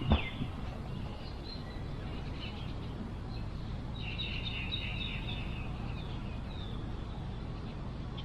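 Outdoor ambience: a steady low rumble with small birds chirping over it, in a quick run of chirps about halfway through. A brief thump comes right at the start.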